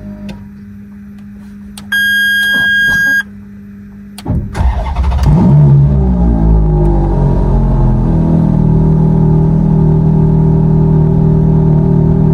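Ferrari 430 Scuderia's 4.3-litre V8 being started. A steady hum and then a beep lasting about a second come first; about four seconds in the starter cranks and the engine catches with a quick rev, then settles into a steady idle.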